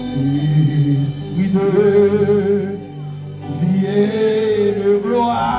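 Gospel singing: a man sings long, wavering held notes through a microphone over steady sustained instrumental backing.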